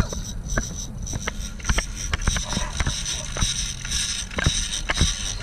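Sport-fishing boat's engine running with a steady low rumble, with irregular sharp clicks and knocks, a couple a second, as a big-game rod and reel are worked.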